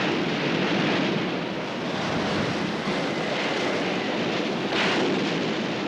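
Steady noise of storm wind and heavy sea, with a brief louder rush near the end.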